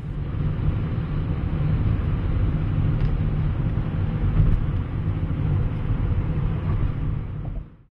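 Road noise inside a moving car's cabin at highway speed: a steady low rumble of tyres and engine, fading out near the end.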